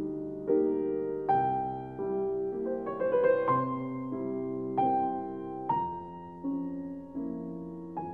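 Slow, gentle piano music: chords struck about once a second, each ringing on and fading before the next.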